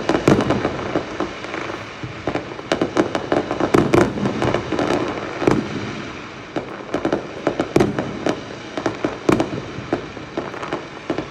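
Many fireworks going off at once: a dense, irregular run of bangs and sharp pops over continuous crackling.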